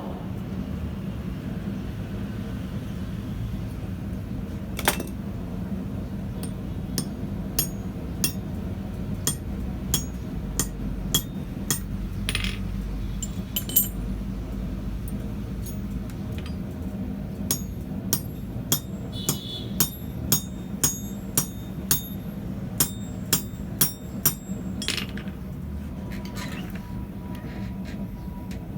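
A small hammer tapping a 3 mm steel rivet to set it, joining the forged door pull and thumb latch: a long series of sharp metallic taps, sparse at first and then coming steadily at about one to two a second, over a steady low hum.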